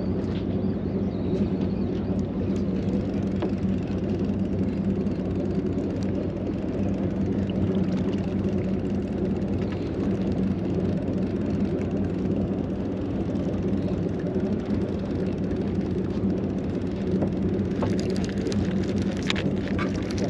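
Charter boat's engine running with a steady, even drone, and a few light clicks near the end.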